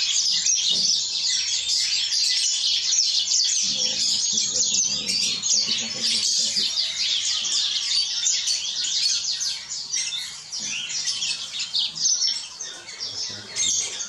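Many small finches chirping together, a dense, continuous chorus of rapid high chirps and twitters from a mixed aviary flock.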